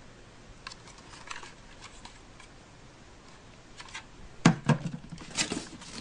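Plastic toy pieces being handled on a tabletop: scattered light clicks and rustles, then a louder knock about four and a half seconds in, followed by a few more clicks.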